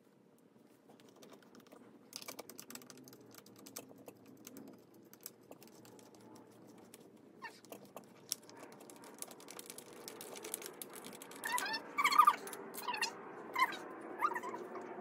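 Light clicking and small rattles of computer-chair parts being handled and fitted during assembly. After about eleven seconds comes a run of short, high squeaks, louder than the clicks.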